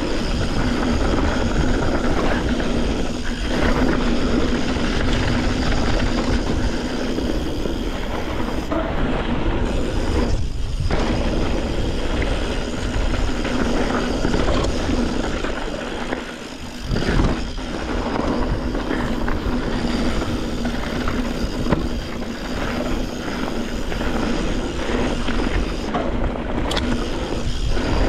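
Yeti SB140 mountain bike ridden down a rough downhill trail: a steady rushing noise of wind on the microphone and tyres running over dirt and rock. It goes briefly quieter about two-thirds of the way through, then a single sharp knock.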